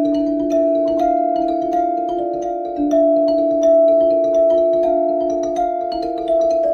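Background music: sustained pitched chords with light struck notes tinkling over them at a steady pace.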